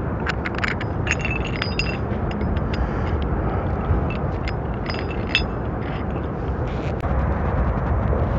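Metal clinking and rattling from a kayak anchor and its chain being let out, a quick run of sharp, lightly ringing clicks that thins out after about five seconds, over a steady rush of wind and water.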